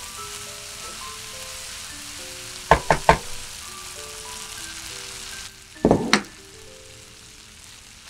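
Diced bacon, onion and mushrooms sizzling in a frying pan, with three sharp knocks a little under three seconds in. About six seconds in, chopped red bell pepper is tipped into the pan with a loud clatter, and the sizzling drops away.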